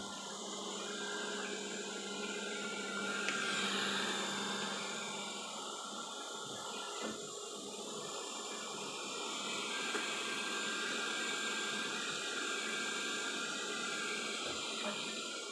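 Robot vacuum mop running steadily: a motor hum with hiss.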